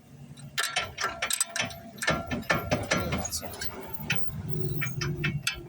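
Ratchet wrench clicking in repeated quick strokes, turning an E18 star (Torx) socket on a brake caliper bracket bolt.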